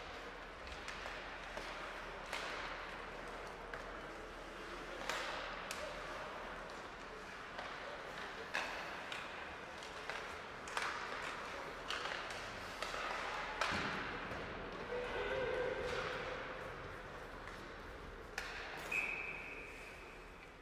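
Ice hockey play in a rink: irregular sharp clacks and thuds of sticks, puck and boards over a steady hiss of skates and crowd, with a short high tone near the end.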